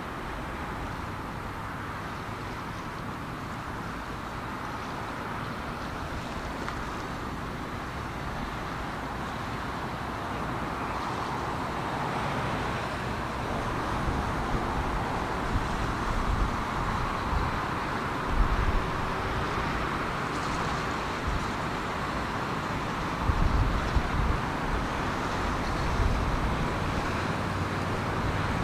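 Steady outdoor rumble and hiss, of the kind distant traffic makes, building slowly. Wind buffets the microphone in short gusts in the second half, and these are the loudest sounds.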